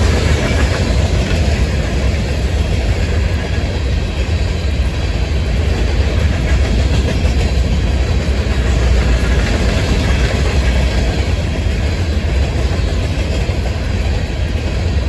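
Florida East Coast Railway freight train rolling past, a loud steady rumble of wheels on rail with a heavy low end.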